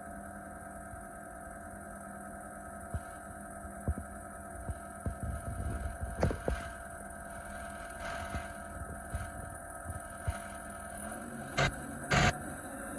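2019 Vermeer SC60TX stump grinder's engine idling steadily, with scattered clicks and two short sharp bangs near the end.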